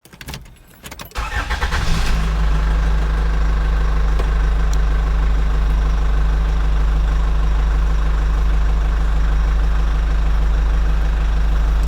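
Jeepney engine cranking over for about a second, catching, then idling steadily with a deep, even rumble.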